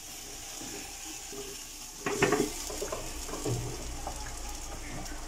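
Marinated chicken frying with a quiet steady sizzle inside a closed Dessini double-sided pan. About two seconds in, the pan clatters as it is turned over on the stove grate to cook the other side, followed by a few faint knocks.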